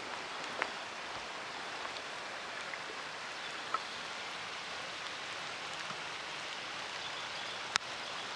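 Steady outdoor hiss, an even wash of noise like light rain, with a few faint clicks scattered through it.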